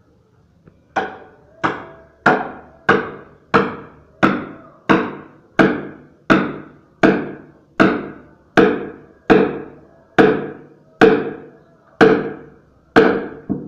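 A hammer repeatedly striking a steel wedge held against a log, driving it into the wood to split it: about seventeen blows, a little under two a second at first and slightly slower towards the end, starting about a second in. Each blow is a sharp metallic clank with a short ring.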